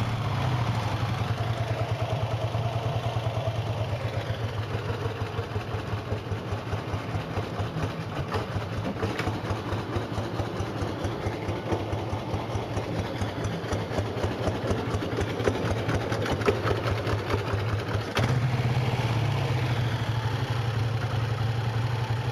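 A 1955 Vincent Black Knight's 998 cc V-twin idling with an even beat, just after starting. About three-quarters of the way through, it gets louder as the revs rise a little.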